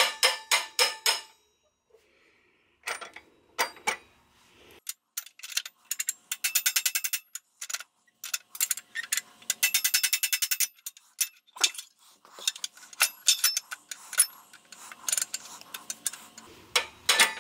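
Hammer tapping a steel shift rail through the cast-iron case bosses of a Ford tractor 5-speed transmission, light metallic ringing taps in quick runs with short pauses, as the rail is eased in carefully past the gate and hinge plate.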